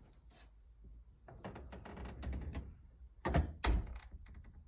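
A door swinging shut under an overhead door closer whose arm is very loose, rattling and clicking as it travels, then a loud double clunk about three and a half seconds in as it meets the frame and latch.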